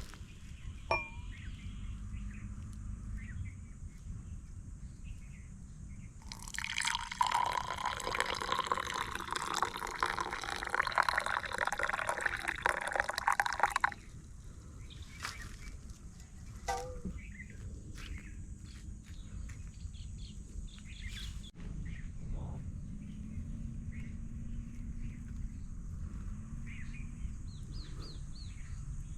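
Liquid being poured in a steady stream for about eight seconds, starting and stopping abruptly. Small clicks and knocks are heard before and after it.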